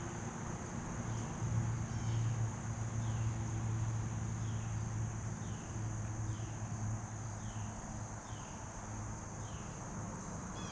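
Pond-edge ambience: a steady high insect drone, with short falling chirps about once a second and a low steady hum underneath.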